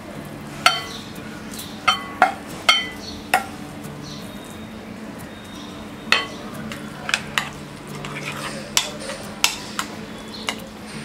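Wooden spatula scraping cooked grated vegetables out of a non-stick pan into a glass bowl, with a run of sharp knocks and clinks of pan and utensils on the rims. About six seconds in, a metal spoon stirs the egg-and-vegetable mixture, clinking against the glass bowl.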